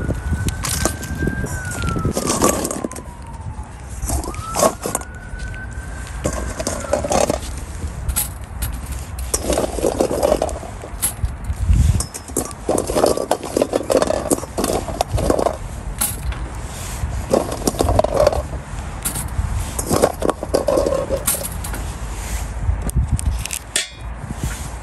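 Charcoal fire crackling in a chiminea under chestnuts roasting on a metal steamer basket, with sharp clicks and pops scattered throughout over a steady low rumble. During the first seven seconds a distant siren wails, falling in pitch and then rising again.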